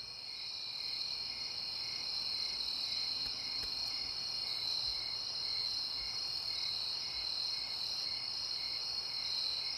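Crickets chirping at night: a steady high trill with a fainter chirp repeating about twice a second.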